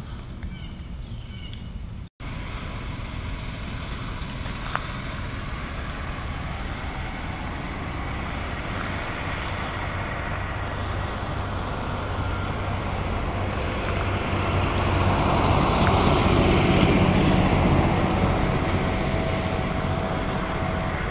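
Motor vehicle running, a steady engine hum with road noise. It swells to its loudest about three-quarters of the way through, then eases off.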